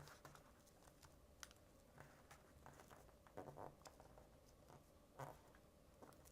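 Faint paper rustling and soft scattered clicks of a square sheet of origami paper being folded corner to corner and creased. The clicks are a little stronger about three and a half and five seconds in.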